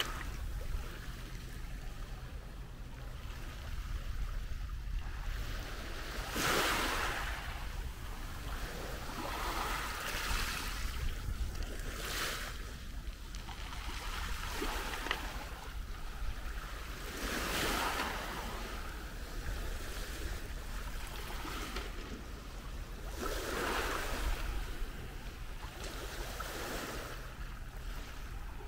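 Small waves washing onto a shingle beach, each one swelling into a hiss over the pebbles and fading again every few seconds, over a steady low rumble.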